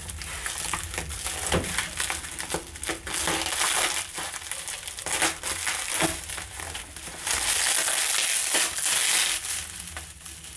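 Plastic bubble wrap crinkling and crackling in the hands as it is slit open with a small folding knife and pulled apart, with many small crackles and a louder stretch past the middle.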